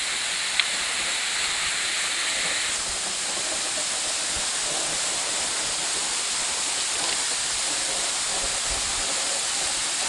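A waterfall pouring down a rock face and splashing onto stone track ballast: a steady rushing hiss. One sharp click about half a second in.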